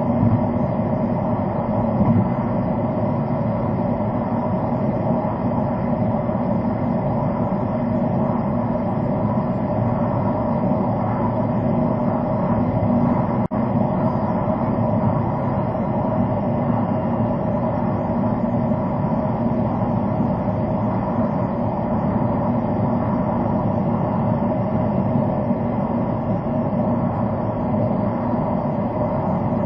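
Steady tyre and engine noise inside a car cruising at expressway speed, with a single brief click near the middle.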